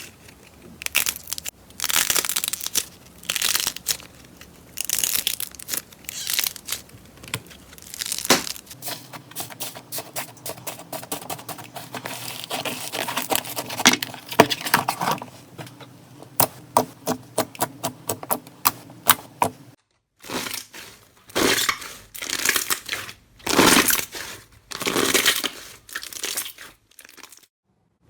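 Slime being squeezed and pressed by hand: a series of noisy squishes with many short clicks, and a fast run of clicks a little past the middle. The sound changes abruptly twice, as one slime clip gives way to the next.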